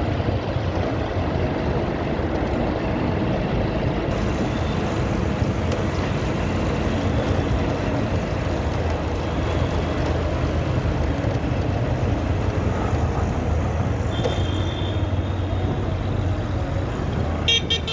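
Motorcycle running at road speed, its engine and wind and road noise steady throughout. A brief high-pitched tone sounds about fourteen seconds in, and a quick run of sharp ticks comes near the end.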